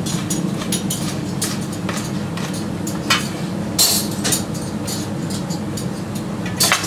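Steady hum of kitchen ventilation under scattered light clicks and knocks of kitchen utensils and dishes, with a few louder clatters about three, four and nearly seven seconds in.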